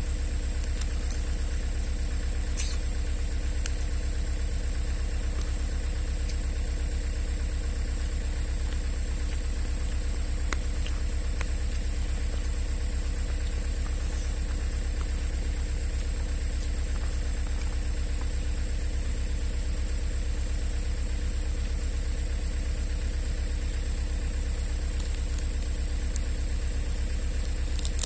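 Excavator's diesel engine idling steadily, with an even, fast low pulse.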